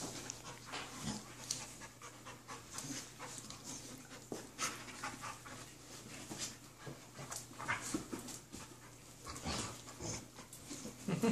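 Two dogs play-wrestling, panting in quick, irregular breaths.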